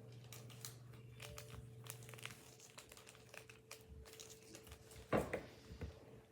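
Crinkling and rustling of a small plastic powder packet being handled and torn open, with scattered light clicks and one louder knock about five seconds in.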